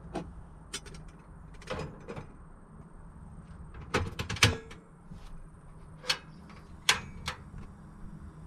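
Metal clinks and knocks of an aluminium stovetop moka pot being handled and set down on the grate of a two-burner portable butane gas stove, the loudest about four seconds in, then sharp clicks near the end as the stove's control knob is turned to light it, over a faint steady low hum.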